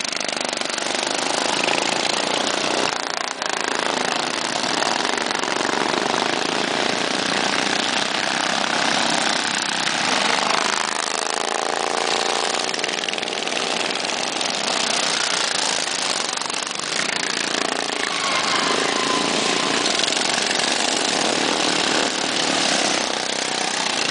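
Racing ride-on lawn mower engines running hard, a steady mix of motors. About ten seconds in, one engine comes to the fore for a few seconds, its pitch wavering up and down.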